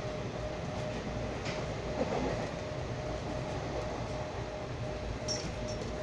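Steady running noise of a passenger train at speed heard from inside a coach, wheels rumbling on the rails, with a few sharper clicks and knocks about two seconds in and again near the end.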